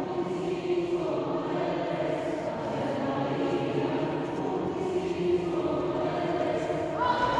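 A choir singing slow, sustained chords. A new high held note enters near the end.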